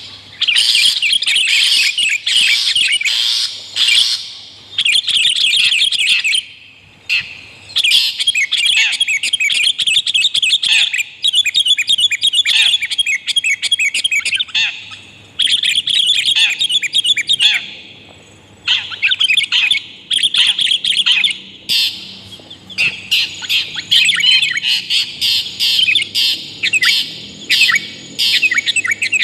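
Long-tailed shrike (cendet) and sooty-headed bulbul (kutilang) calls played as a bird-lure recording: loud, rapid chattering in bursts of a few seconds with short pauses between them.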